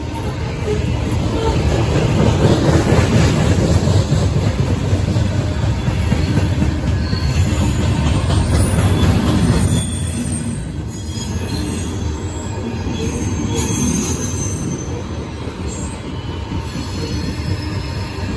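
Loaded coal cars of a freight train rolling past at close range: a steady rumble of steel wheels on rail, loudest in the first half and easing a little after the middle, with faint high wheel squeals in the second half.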